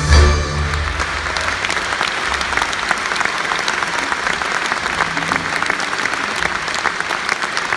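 Folk orchestra's music breaks off about half a second in, and a large audience applauds steadily.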